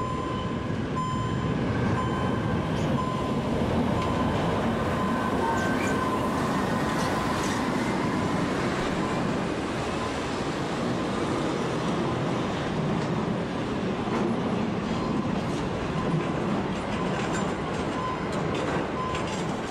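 A diesel works shunting locomotive passes hauling an empty train of double-deck car-transporter wagons, with steady rumbling and rolling wheel noise from the wagons. Over it a high, thin tone from the level-crossing warning pulses about once a second.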